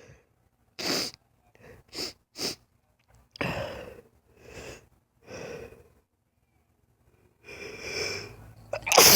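A woman's sneezing fit. A sharp sneeze comes about a second in and two short ones follow in quick succession around two seconds, with gasping breaths after them; after a pause, a long drawn-in breath leads to a loud sneeze near the end.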